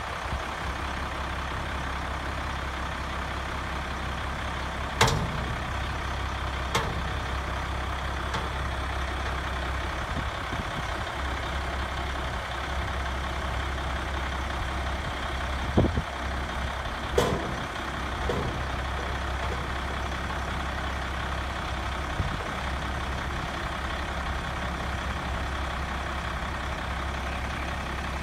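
Ford L8000 spray truck's diesel engine idling steadily, with a few sharp clunks while its spray booms are raised.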